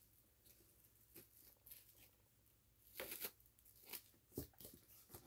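Faint rustling and scraping of a cardboard box and its packaging being opened by hand, with a few brief knocks in the last second or so.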